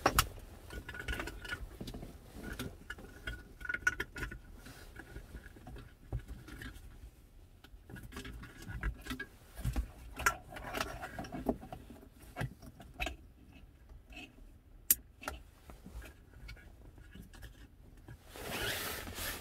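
Plastic wiring-harness connectors and cables being handled and plugged in behind a car's rear-view mirror: scattered clicks, taps and rubbing, with one sharp click about three-quarters of the way through and a longer scrape near the end.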